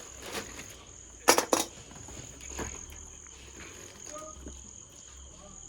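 Two sharp clicks close together about a second and a half in, with a few fainter clicks, over a steady high-pitched chirring like a cricket's.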